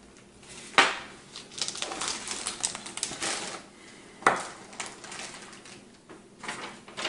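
Clear plastic hardware bags crinkling as they are handled, with sharp clicks of small metal screws and washers clinking down onto the table. The loudest clicks come about a second in and again just after four seconds.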